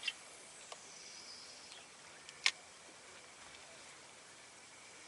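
Two sharp clicks about two and a half seconds apart, the second the louder, over a faint steady hiss with a thin high steady tone.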